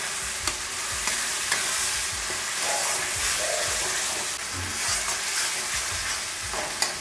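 Soaked moong dal sizzling in hot oil and spice paste in a kadai while a metal spatula stirs it, scraping against the pan now and then. This is the dal being sautéed in the masala.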